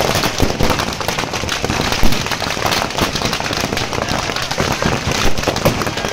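Firecrackers packed inside burning effigies going off in a rapid, continuous crackle of pops and bangs, with one louder bang about two seconds in.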